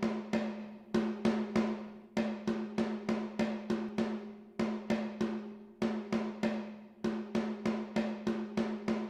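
Background music: a drum beating a repeating rhythm over a steady held low note.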